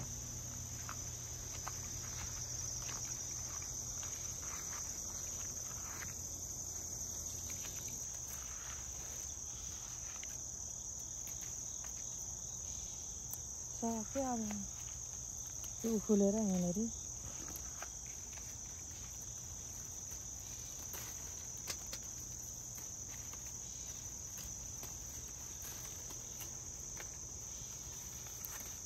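Crickets chirring in a steady, high-pitched chorus, over a low steady hum. About halfway through, a person's voice sounds briefly twice.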